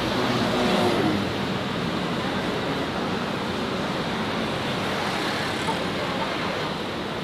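Street traffic: a motor vehicle's engine passes close by, loudest about a second in, over a steady hiss of traffic.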